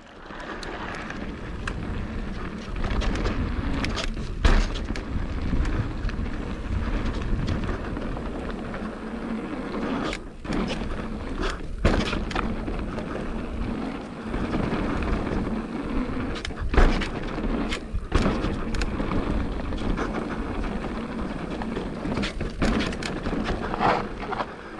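Mountain bike riding down a dirt jump trail, heard on the bike-mounted or rider-worn camera: a steady rush of wind and tyre noise, with the bike rattling. Sharp knocks from impacts come through it, the loudest about four and seventeen seconds in.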